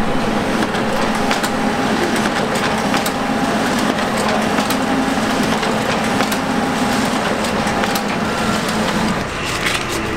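HP office laser printer printing, running with a steady hum and frequent light clicks as sheets feed through, then stopping about nine seconds in.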